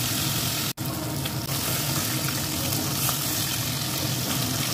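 Kuri fish steaks sizzling steadily as they fry in hot oil in a kadai, with a momentary break in the sound under a second in.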